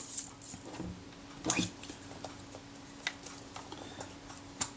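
A few small clicks and knocks from a camera and small parts being handled and set down on a work mat, with a faint steady hum underneath.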